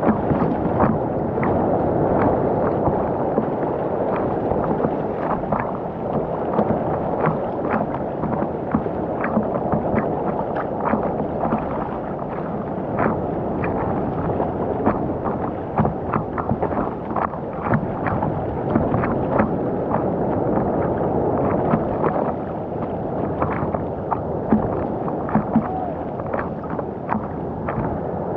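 Ocean water sloshing and splashing around a camera, a steady muffled rush with frequent small sharp splashes, heard through a waterproof camera housing.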